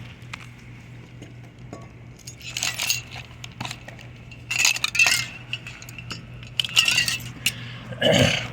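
Metal clinking and rattling in three short bursts while a window is being worked open, then a heavier thump near the end, over a steady low hum.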